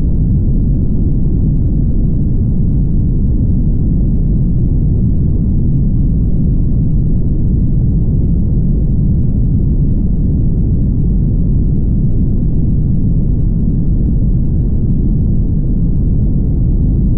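Steady low rumble of a car driving at highway speed: tyre and road noise with engine drone, unchanging throughout.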